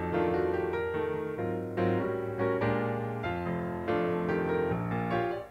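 Instrumental background music, a keyboard-like melody of struck notes and chords that change about every second.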